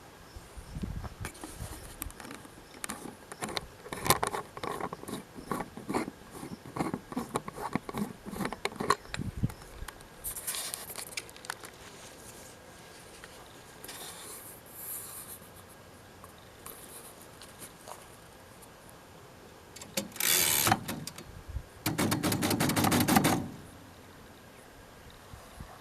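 A 1948 Royal Quiet De Luxe portable typewriter being typed on: a run of keystrokes for about nine seconds, a few short rasping sounds after, and near the end two short runs of rapid clicking.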